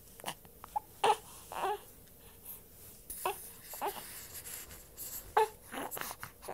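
Hiccups: about eight short, sudden squeaky sounds, unevenly spaced, each over in a moment.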